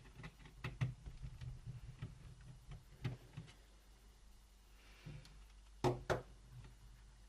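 Small screwdriver turning out the screws that hold a laptop's cooling fan, with a string of light clicks and taps on the plastic and metal chassis, then two louder clicks close together near the end.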